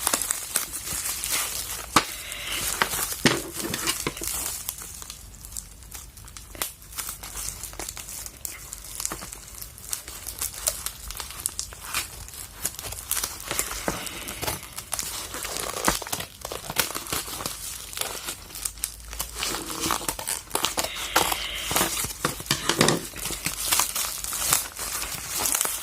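Parcel packaging being unwrapped by hand: irregular crinkling and rustling of plastic wrapping, with sharp crackles and bits of tearing.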